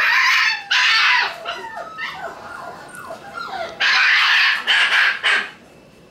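Month-old Shiba Inu puppies yelping and whining in high squeals. Two loud cries come at the start and three more near the end, with fainter whimpering squeaks between them.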